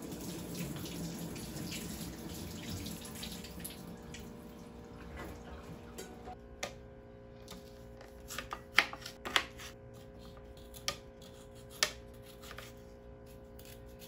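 Water running as a carrot is rinsed under the tap, fading out about five seconds in. A kitchen knife then cuts the carrot on a plastic cutting board: single sharp chops, irregular, about a second apart.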